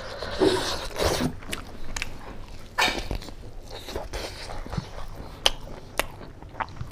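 A person chewing and biting food, with wet mouth smacks and scattered sharp clicks.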